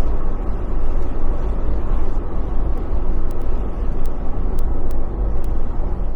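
Off-road vehicle driving: a steady, loud low rumble of engine and tyres, with a few faint clicks over it.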